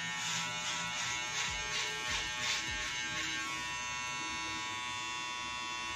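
Kemei KM2024 two-blade rechargeable foil shaver running with a steady electric buzz as it is passed over the chin and neck. For about the first three seconds each stroke across the skin adds a rasp, about three a second, then only the motor's steady hum remains.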